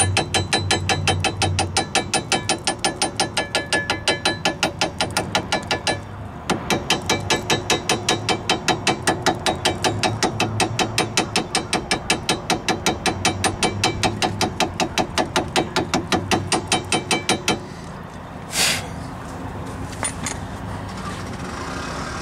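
A hammer tapping lightly and rapidly on a 2011 Honda CR-V's rear brake caliper, about five ringing metallic taps a second, with a short break about six seconds in. The tapping stops near the end, followed by a single sharp knock. The taps knock air bubbles loose so the caliper can gravity-bleed through its open bleed screw.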